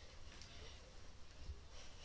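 Faint rustling of a soft blanket being shaken out and handled on a bed, over a low steady hum, with a slightly louder swish about half a second in and again near the end.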